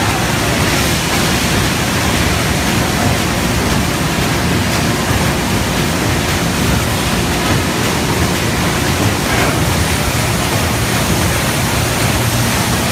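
Imanpack Moonlight PBB horizontal flow-wrapping machine running, wrapping stacks of plastic plates in film: a steady, even wash of machine noise with a low hum underneath.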